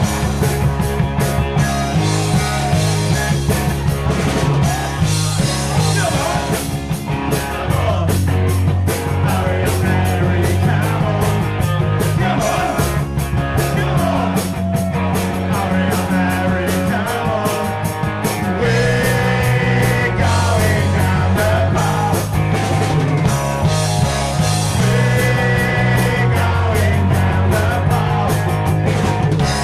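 Live rock band playing punk/new wave: electric guitars, bass and drums keeping a steady beat, with a singer at the microphone.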